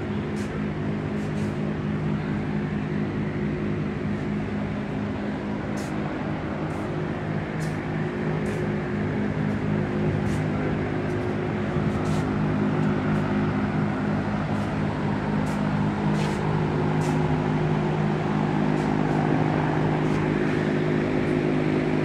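A steady low machine hum, unchanging throughout, over a hazy background noise, with a few faint, sharp, high ticks here and there.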